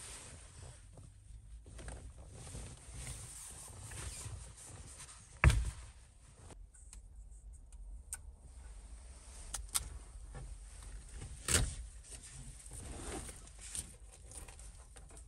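Faint rustling and movement noises, broken by two sharp knocks: the louder one about five and a half seconds in, the other near twelve seconds.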